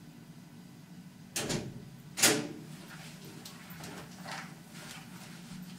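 A door being knocked against: a thud about 1.4 s in, then a louder bang about 2.2 s in that rings on briefly, followed by fainter clicks and rattles.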